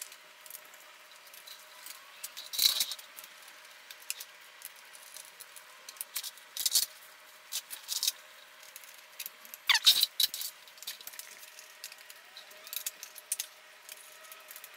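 Scattered light clicks and clinks of plastic bodywork and small fasteners as a Honda Grom's front headlight cowl is fitted back and screwed down by hand, with a few sharper clicks spread through.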